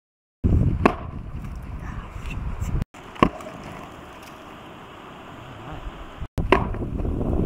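Rocky Mountain bighorn sheep rams clashing head-on: three sharp cracks of horn striking horn, about a second in, again about three seconds in, and once more near the end. A low wind rumble on the microphone runs beneath them.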